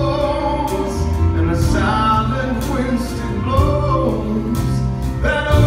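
A male singer performing a soft-rock ballad live, backed by a band of drums and electric and acoustic guitars, the lead vocal sung over it.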